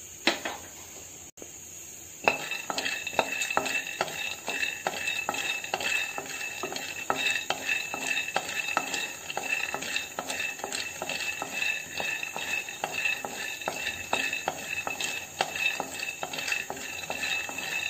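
Spatula stirring raw peanuts as they dry-roast in a kadai: repeated scraping strokes against the pan with the nuts rattling, a few strokes a second, starting about two seconds in.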